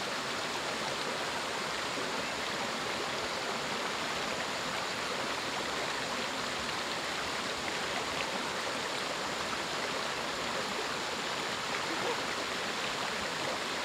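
Shallow stream rushing steadily over a low rocky ledge and down a stony channel.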